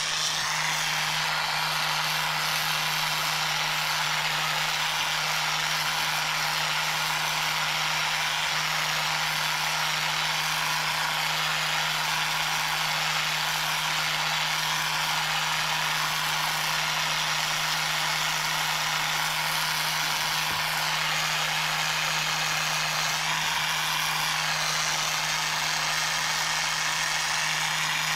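Gas blowtorch flame burning with a steady, continuous hiss as it heats a small sheet-metal part to a glow.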